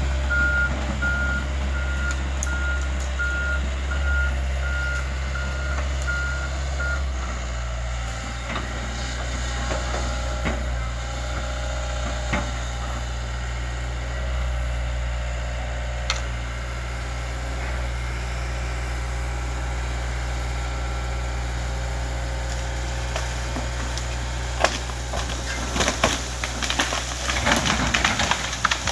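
Excavator diesel engine running under load, with its backup alarm beeping steadily for the first seven seconds or so. Near the end come sharp, irregular cracks and snaps of wood splintering as the scarlet oak gives way.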